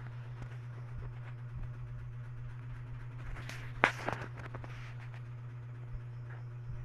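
Steady low hum of background noise with a few faint clicks and a short rustle, the loudest a single sharp click about four seconds in.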